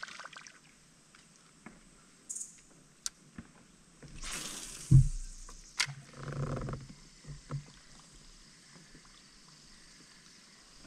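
Handling noise in a kayak while fishing: a few light clicks, then a rustling burst ending in a dull thud about four to five seconds in, a sharp click, and a stretch of rubbing and knocks, after which it goes quiet.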